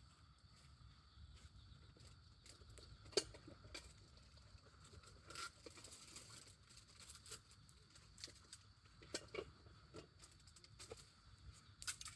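Campfire crackling faintly, with sparse small pops and one sharper pop about three seconds in.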